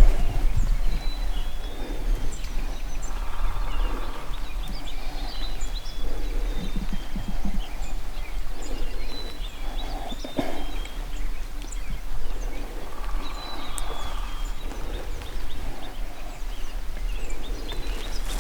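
Small songbirds chirping on and off, with scattered rustles in dry leaf litter and a single sharp snap about ten seconds in.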